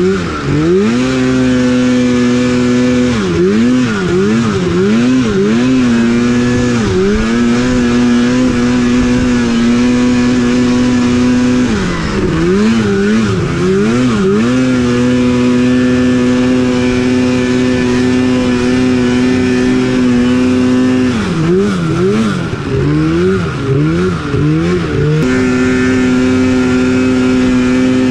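Polaris mountain snowmobile's two-stroke engine running hard while climbing and sidehilling in snow. It mostly holds one steady high pitch. A few seconds in, around the middle and again later, the rider blips the throttle in quick succession, and each time the pitch drops and rises again.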